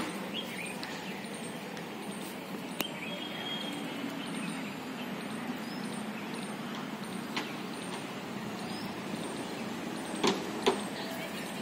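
Steady outdoor background noise with no clear single source, broken by a few faint short clicks, once about three seconds in and twice near the end.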